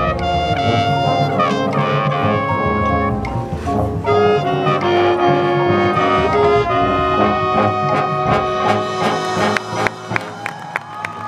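Marching band playing a loud brass passage, trombones and trumpets to the fore over drums. About ten seconds in the music stops and the crowd starts clapping and cheering.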